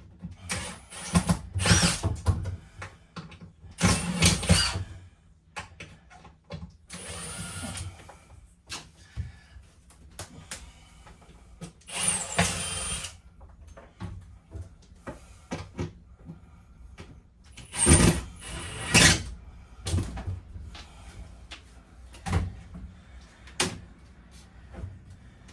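Repeated knocks, clunks and scrapes from the interior fittings and panels of a 1972 Winnebago Brave being unscrewed and pulled loose. A few short whirring bursts of a power driver backing out screws are mixed in.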